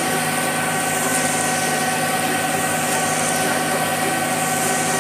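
Concrete mixer truck's diesel engine running steadily while the truck pours concrete down its chute, a constant hum with a steady whine over it.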